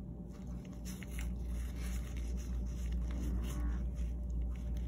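Steady low hum with scattered soft rustles and light scrapes as gauze and gloved hands work at the dog's mouth.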